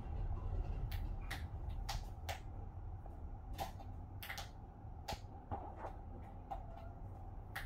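Hurricane wind heard from inside a closed house as a steady low rumble with a faint steady tone above it. About a dozen irregular sharp clicks and ticks come through it.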